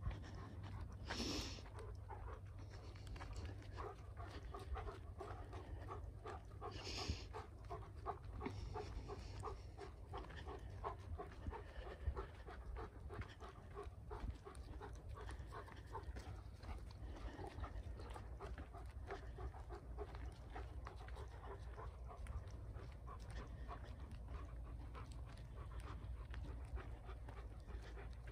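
A dog panting steadily in quick, even breaths, with two short hisses, one about a second in and one about seven seconds in, over a steady low rumble.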